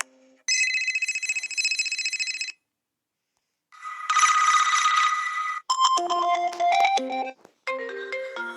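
Sony Ericsson and Xperia mobile phone ringtones played back to back, each cut to a second or two: a trilling ring about half a second in, a pause, then a denser ringing tone, then two short melodies of stepped notes.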